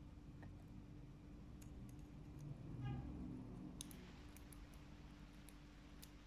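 Faint, sparse light clicks of steel tweezers and small lock pins being fitted back into a barrel lock's cylinder, over a low steady hum.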